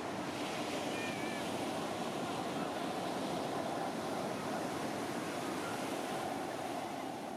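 Steady wash of ocean surf and wind noise on the microphone, with a short faint chirp about a second in.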